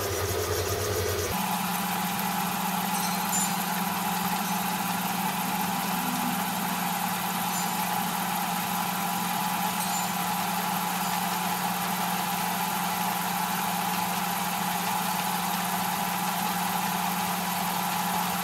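Motor of a small home-built Gingery mill/lathe running steadily. Its hum steps up to a higher pitch about a second in and holds there, as if the spindle speed has been turned up.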